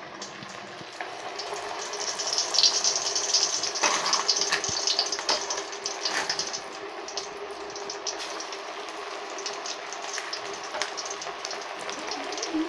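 Battered chicken pakoras deep-frying in hot oil in a steel wok, a steady sizzle of bubbling oil. The sizzle grows louder about two seconds in as fresh batter goes into the oil, then settles.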